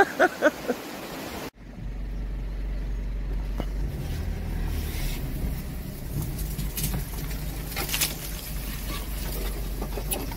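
Pickup truck engine running with a steady low drone heard inside the cab as it moves slowly along an overgrown track, with a few short clicks and knocks.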